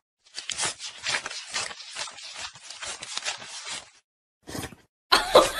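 Paper banknotes being counted by hand: a quick, irregular run of crisp flicks and rustles that stops about four seconds in. Near the end a louder, pitched, voice-like sound starts.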